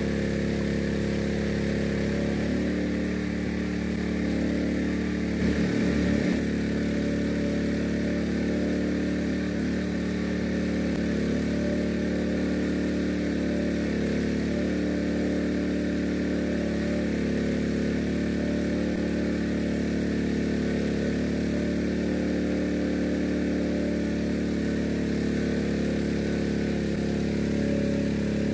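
Engine-driven mud pump running steadily, pumping water down the jetting pipe to drill the well shaft.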